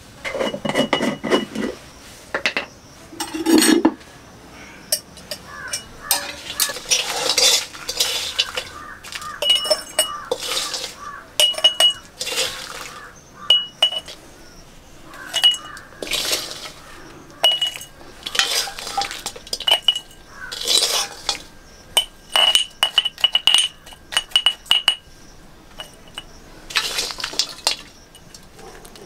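A metal spoon scrapes chicken pickle out of a black wok and clinks against a glass jar as the jar is filled. It is a long run of scrapes and sharp clinks, many of them with a short ringing ping from the glass.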